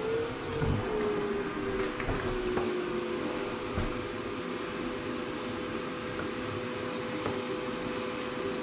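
Glowforge Pro laser cutter running just after power-on: a steady machine hum, with a motor tone that rises and then falls over the first few seconds, and a few light clicks.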